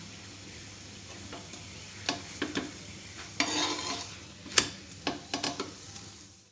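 Lachha paratha frying in ghee on a hot non-stick tawa, a steady sizzle, then a spatula scraping and clicking against the tawa as the paratha is lifted and flipped, with one sharp clack about four and a half seconds in.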